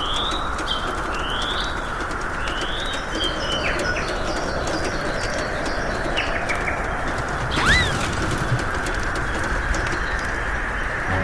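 Wild birds calling: a run of short rising chirps, a few falling notes, then one louder rising-and-falling call about eight seconds in, over a steady background hiss.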